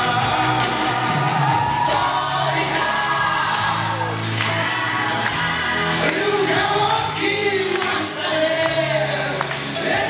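A live pop ballad: singing with a microphone over a band backing track with a steady beat.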